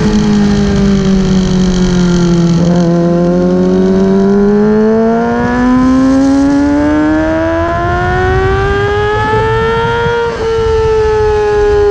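Motorcycle engine heard from on board at track speed: its pitch sinks through a corner, then climbs steadily as the bike accelerates down the straight, with a sudden drop about ten seconds in as it shifts up a gear. Wind noise rushes under the engine.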